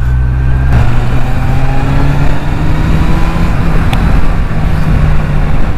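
Kawasaki Z800's inline-four engine running under way, fitted with a changed exhaust, its note rising slowly as the bike accelerates, with wind and road noise on the microphone.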